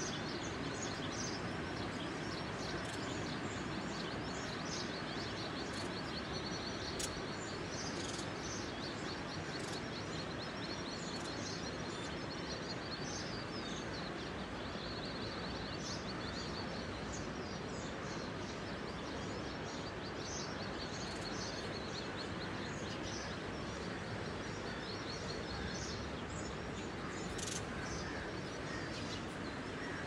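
Steady outdoor background noise with birds chirping over it again and again in quick, high trills.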